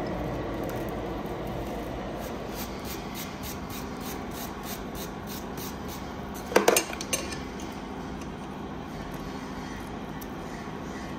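Hand hammer striking red-hot twisted steel wire rope on an anvil. A quick cluster of two or three sharp blows a little past halfway is followed by a lighter one. Under it runs a steady background rush, and there is faint rapid ticking in the first half.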